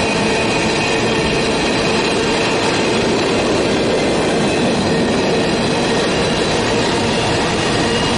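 Covered hopper cars of a freight train rolling steadily past at close range, a continuous rumble of steel wheels on rail with a faint steady tone over it.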